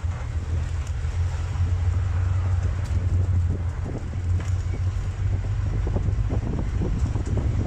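Open safari game-drive vehicle driving: a steady low engine and road rumble with wind noise on the microphone and scattered light knocks and rattles.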